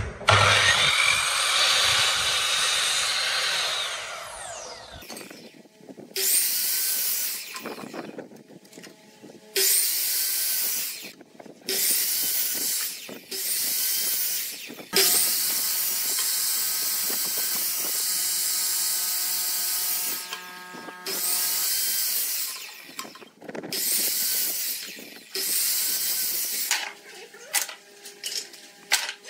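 Sliding miter saw cutting short pieces of wood in a run of separate cuts, each a second to a few seconds long. The first cut ends with the motor winding down, falling in pitch, about four seconds in.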